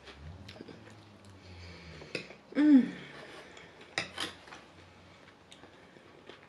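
Eating sounds: a metal fork clicking against a plate and mouth sounds of chewing, with a brief hum from the eater a little under three seconds in.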